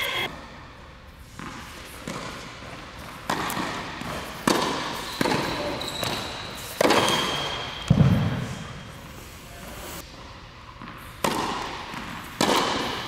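Tennis rally on an indoor court: rackets striking the ball and the ball bouncing. About eight sharp pops a second or more apart, each echoing in the large hall. The loudest, about eight seconds in, carries a heavier thump.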